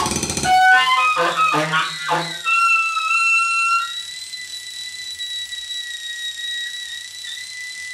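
Free-improvised music for saxophone, turntable and synthesizer: a dense noisy texture cuts off about half a second in, then short scattered pitched blips. From about a third of the way in, thin high whistling tones are held steady to the end.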